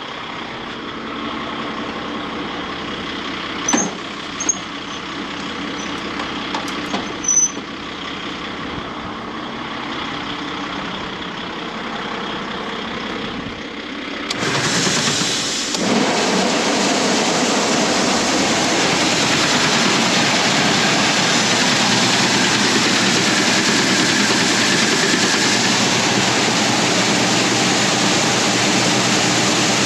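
Grain-loading sounds under the truck's engine: a few sharp clicks, then about halfway through a loud steady rush starts suddenly and keeps going, the grain auger running and grain pouring into the truck's trailer.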